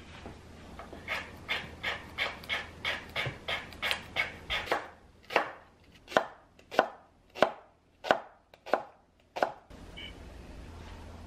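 Kitchen knife slicing a thick Korean green onion (daepa) on a wooden cutting board. First comes a run of quick cuts, about three a second, then slower, louder cuts about every two-thirds of a second, stopping a little before the end.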